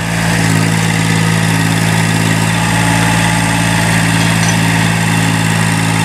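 Kubota 905 three-cylinder diesel engine of an Allmand TLB225 backhoe loader running at a steady speed while the backhoe boom is swung side to side.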